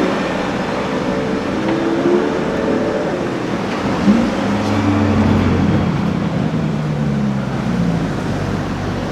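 A sports car's engine revving and accelerating, its note rising and falling, with a short sharp pop as the pitch jumps up about four seconds in. The engine note then settles lower and slowly falls away over street traffic noise.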